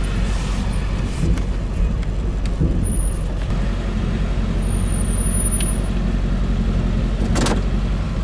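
Pickup truck engine running at low speed, heard from inside the cab as a steady low rumble. A few light clicks are heard, and a sharper knock comes near the end.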